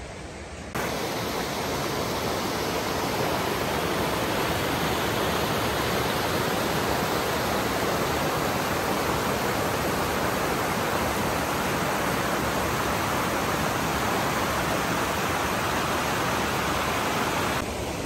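A mountain stream rushing over granite boulders and small cascades, as a steady, even rush of water. It comes in suddenly about a second in and drops back a little near the end.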